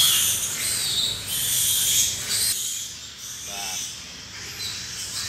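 Shrill, high-pitched animal calls coming and going in a pig barn, easing off for a moment around three seconds in.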